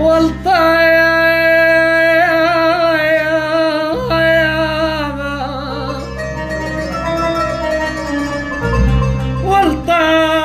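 Music: long held melody notes with a wavering vibrato over a steady low drone, the instrumental opening of a sad Arabic song.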